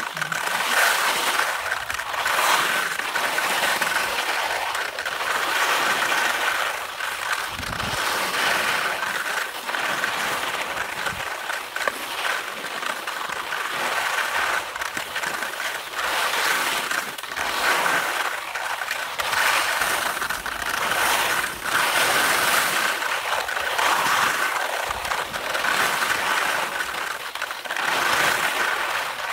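Skis scraping over dimpled, sun-cupped spring snow on a descent, the hiss swelling and easing with each turn about every two seconds.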